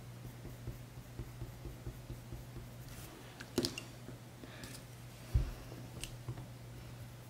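Faint scratching of a coloured pencil on paper, broken about three and a half seconds in by a sharp clatter as the pencil is set down, then a low thump and a click as it is picked up again. A steady low hum runs underneath.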